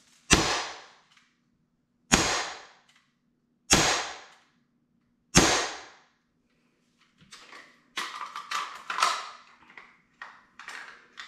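Four sharp shots from a Glock 19X CO2 BB pistol, about 1.7 seconds apart, each with a short echo fading away. In the second half come a few light clicks and rustling as the pistol is handled and lowered.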